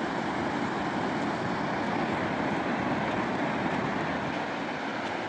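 Ocean surf breaking and washing up a sandy beach: a steady, even rush of waves.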